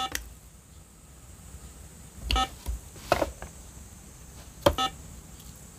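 Toy cash register's handheld scanner giving about four short electronic beeps as a toy food piece is scanned.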